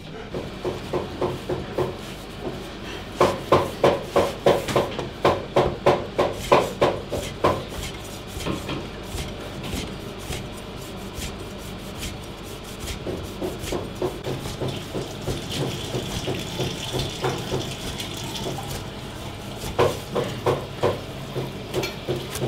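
Cleaver chopping rolled flatbread into strips on a plastic cutting board: quick, even knife strikes about three a second, loudest in the first third and again near the end, lighter in between. A steady low hum runs underneath.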